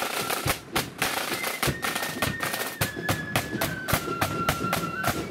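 Marching band snare drums and bass drum playing a march beat, sharp strokes about four times a second, with a faint high flute melody held above them.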